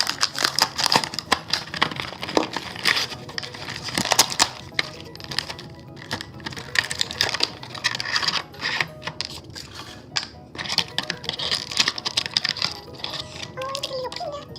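Toy packaging being torn open and handled by hand: a dense, irregular run of crackling, clicking and rustling of plastic and cardboard.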